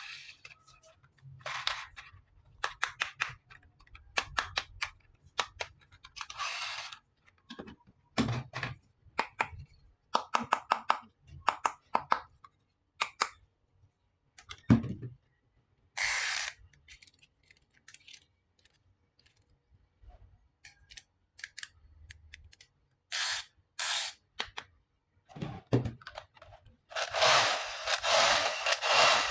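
Close-miked handling of plastic toy pieces and packaging: scattered clicks, taps and short rustling scrapes, with a steady scraping rub starting near the end.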